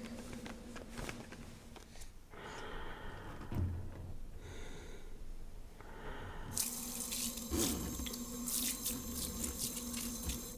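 Water running from a kitchen faucet's pull-down spray head into a sink, spraying strongly from about six and a half seconds in.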